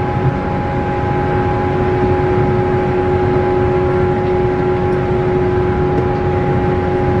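117 series electric train's traction motors whining at a steady pitch at running speed, over the rumble of wheels on the track, heard from inside the passenger car.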